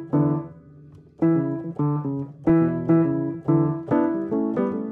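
Background music of plucked notes, with a brief lull about a second in.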